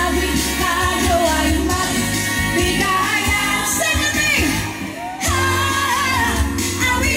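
A woman singing a pop song live into a handheld microphone, backed by a band through the stage PA. About two-thirds of the way through, the band drops out briefly, leaving mostly the voice, and then comes back in.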